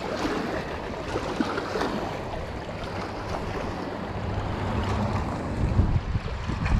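Small choppy waves lapping and washing against a rocky lakeshore, with wind buffeting the microphone, the gusts growing stronger in the last couple of seconds.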